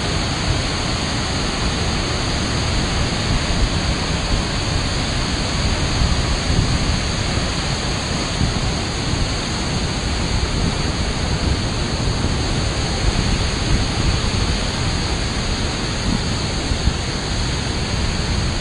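Ban Gioc waterfall's multi-tiered cascade crashing into the river close by: a steady, loud rush of falling water.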